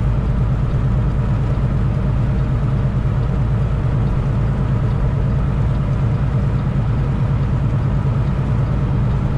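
Semi truck's diesel engine and road noise heard from inside the cab while driving: a steady low drone.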